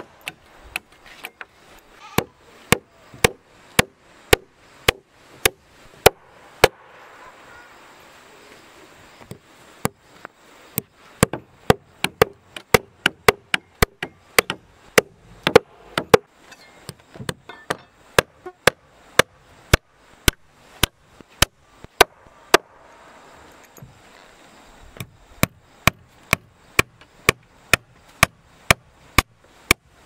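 Hammer driving nails into rough-sawn wooden floor planks: sharp, repeated blows at about two a second, breaking off twice for a few seconds.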